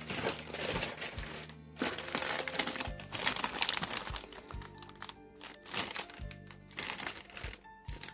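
Clear plastic bags holding model-kit runners crinkling and rustling as they are handled, with background music playing throughout.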